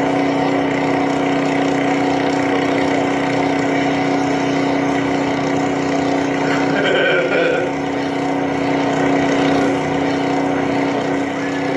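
Steady, unbroken motor hum with a strong pitched drone, from a fishing video's soundtrack played over a room's loudspeakers.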